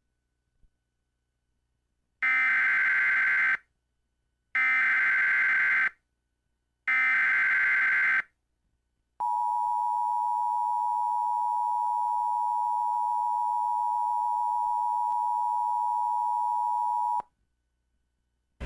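Emergency Alert System SAME header: three short bursts of screeching data tones with short gaps between them. Then comes a steady attention tone lasting about eight seconds that cuts off abruptly, signalling that a flash flood warning is about to be read.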